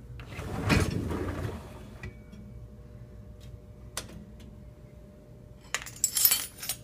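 Dishwasher rack rolling out on its wheels, a click, then dishes clattering near the end as the still-wet load is handled.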